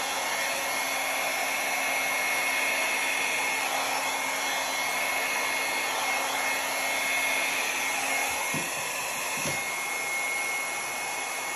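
Small handheld hair dryer running steadily, blowing air across wet acrylic paint: an even rushing whir with a thin high whine.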